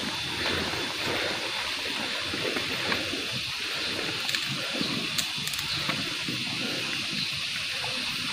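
Outdoor walking ambience on a grassy mountain trail: a steady rushing hiss with irregular low scuffs and thumps of footsteps on the dirt path, and a faint high steady whine behind it.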